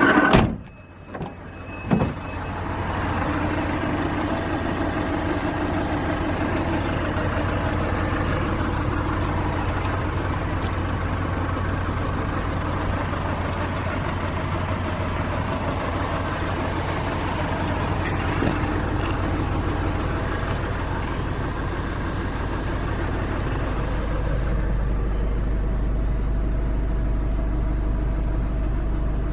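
Nissan NV350 Caravan's 2.5-litre diesel engine running steadily at idle, after a short knock about two seconds in. The low hum grows a little stronger near the end.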